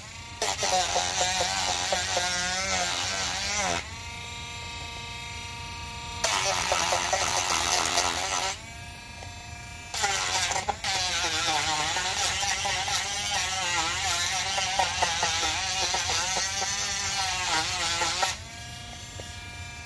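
Cordless Dremel rotary tool with a sanding wheel grinding old tire glue off an RC car wheel, its pitch wavering under the load. Three times, about 4 s in, about 8½ s in and near the end, the load comes off and the motor spins free with a steady, quieter whine.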